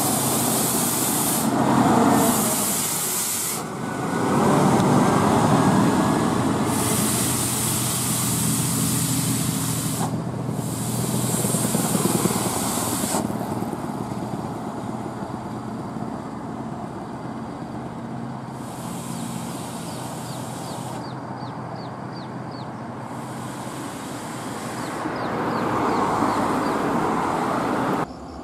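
Mitsubishi Fuso tandem-axle cargo truck's diesel engine running as it passes close by and pulls away round a bend, with loud bursts of air-brake hiss coming and going several times. The sound drops off abruptly near the end.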